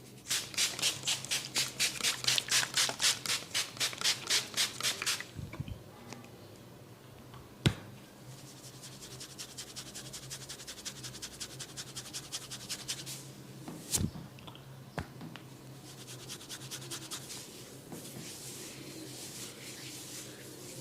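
A comb scratching rapidly back and forth through hair and across the scalp, about five strokes a second, loud for the first five seconds, then softer in later runs. Two sharp single clicks come about a third of the way in and again past the middle.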